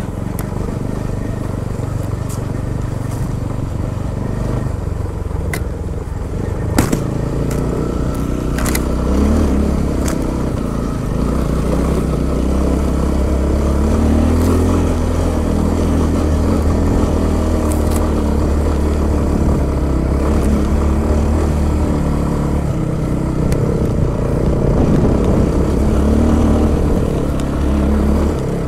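Motorcycle engine running steadily as the bike rides a rough off-road trail, with a few sharp knocks about 7 and 9 seconds in and some clatter from the bike over the rough ground.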